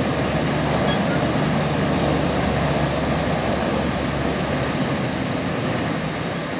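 A large engine running steadily with a low hum underneath, the hum dropping away about five seconds in as the sound slowly fades.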